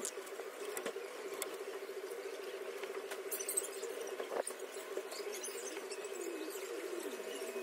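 Small handheld rotary engraving tool running steadily while its bit scratches and carves into wood. The motor's pitch wavers slightly as the bit bites, with scattered small scraping clicks.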